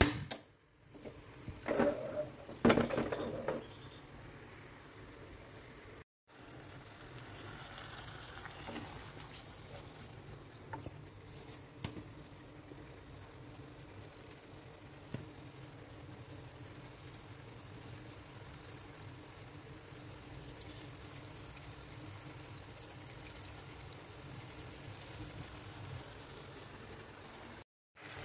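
Cooking oil heating in a pan on a gas stove, a steady bubbling hiss, with a few clattering knocks about two to three seconds in.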